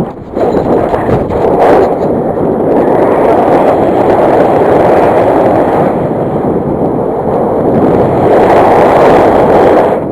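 Wind buffeting the microphone: a loud, continuous rumble that swells and eases in gusts, with a brief lull just after the start.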